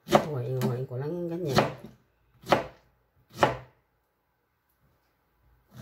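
Kitchen knife slicing a peeled pineapple into pieces on a plastic cutting board. A long first cut of about two seconds carries a low wavering tone, then two short cuts follow about a second apart.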